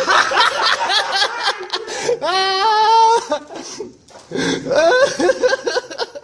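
Loud laughter in quick pulses, with a drawn-out high, wavering cry in the middle, then more laughing.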